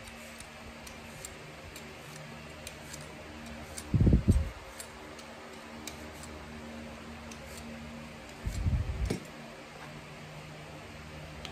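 A vegetable peeler scraping a potato: faint, repeated scraping ticks over a steady mechanical hum, with two short low thumps about four and nine seconds in.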